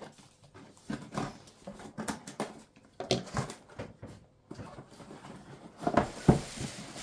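A pet cat meowing, over the rustle and knocks of a cardboard box being slit open and handled, with a few louder knocks about six seconds in.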